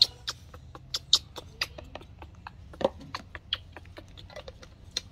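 Baby monkey crying for its milk in short, high-pitched squeaks, a few a second and irregularly spaced.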